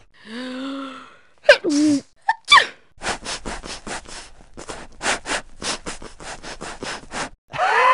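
A run of short comedy sound effects played back to back: a few brief pitched swoops and cries, then a quick run of short noisy strokes about five a second, then a loud rising pitched sound near the end.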